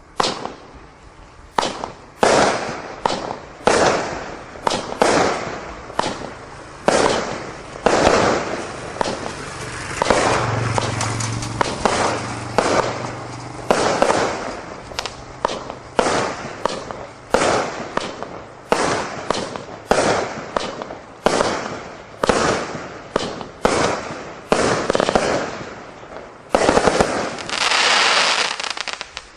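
Display fireworks firing a barrage: sharp bangs of shells bursting overhead, about one to two a second, each trailing off. A longer crackling burst comes near the end.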